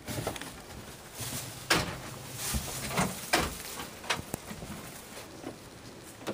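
Canon MG5320 inkjet printer running its ink-charging cycle: irregular mechanical clicks and knocks over a faint low motor hum.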